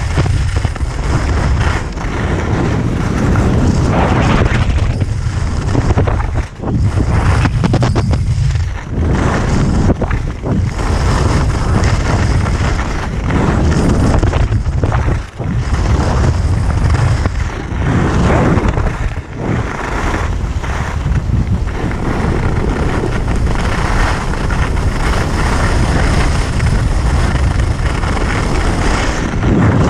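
Wind buffeting an action camera's microphone as a skier runs fast down a groomed piste, with the hiss of skis sliding on the snow. The rumble dips briefly a few times.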